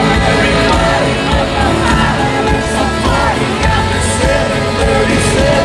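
Loud live country-rock band music with singing over a concert sound system, heard from among the audience.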